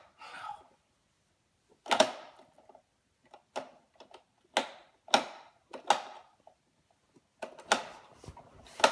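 A light switch being flicked off and on again and again: about eight sharp clicks at uneven intervals, some close in pairs.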